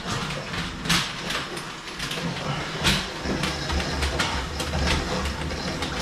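Closet auger being worked down into a clogged toilet: the cable clicks and clatters in its metal tube as the handle is pushed and turned, with a low rumble setting in about three seconds in.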